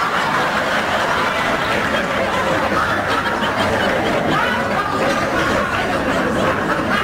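Studio audience laughing, a steady wave of crowd laughter that holds at one level throughout.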